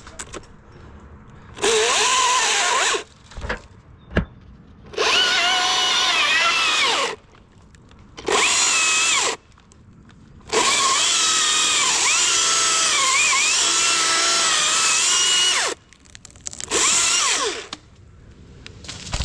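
Chainsaw cutting through a Douglas fir limb in a series of full-throttle bursts, the pitch dipping as the chain bites into the wood; the longest cut runs about five seconds. A single sharp knock about four seconds in.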